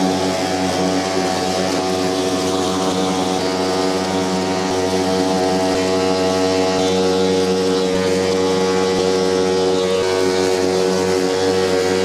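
Milwaukee M18F2LM53 21-inch battery lawn mower running at a steady pitch with its blade spinning as it mulches grass, a continuous motor-and-blade whine.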